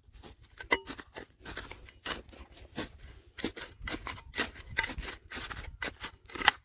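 Rocky gravel being dug, giving a run of irregular scrapes and clicks of stone, a few a second.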